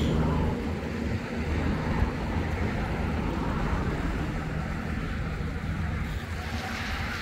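Low rumble of road traffic on the adjacent highway bridge, a passing vehicle fading away in the first second, with wind on the microphone.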